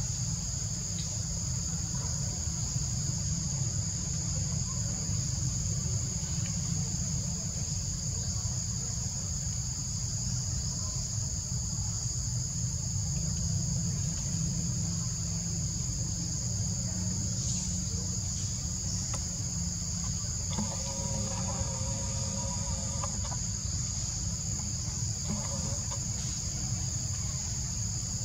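Insects trilling in a steady chorus at two high pitches. About two-thirds of the way through, a call with several steady pitches lasts about two seconds.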